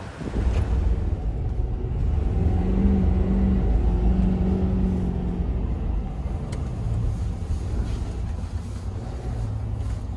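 Ford F-250 Super Duty's 6.7-litre Power Stroke turbo-diesel V8 pulling hard under acceleration: a deep, steady rumble, with a higher held engine note from about two and a half to five and a half seconds in.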